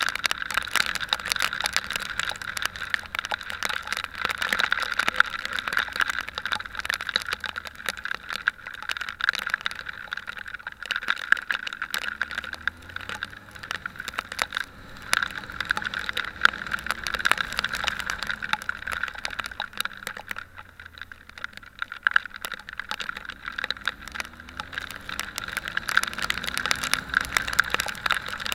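Motorcycle on the move: steady wind buffeting over the microphone, with the engine faintly heard rising in pitch as it accelerates, several times over.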